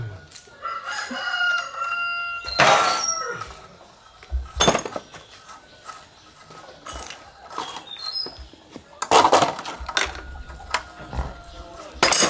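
A rooster crows once, a long held call starting about a second in. Sharp knocks sound several times around it, the loudest near the end.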